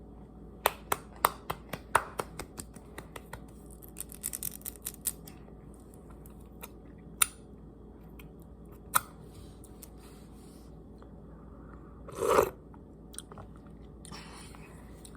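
A person chewing pickles close to the microphone: wet, crunchy clicks in quick runs near the start and again around four seconds in, then a few single crunches, with one short louder mouth sound about twelve seconds in.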